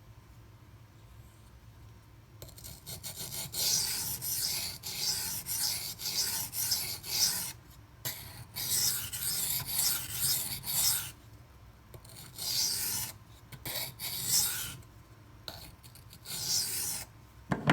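Steel knife blade (154CM) scraped in quick back-and-forth strokes on a silicon carbide sharpening stone, grinding chips out of a damaged edge. The strokes start a couple of seconds in and come in several runs with short pauses between them.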